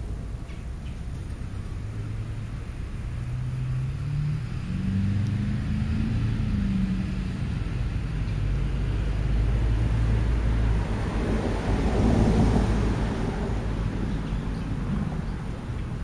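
A motor vehicle passing on a road: a low engine note climbs and then falls, and a swell of road noise builds to a peak about twelve seconds in and fades away.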